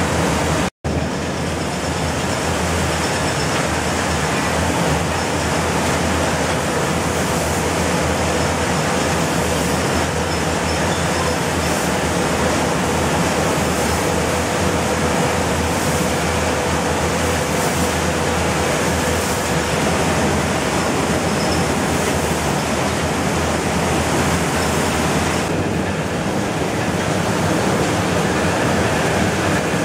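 Rice mill machinery running: a steady, loud mechanical din with a low hum underneath.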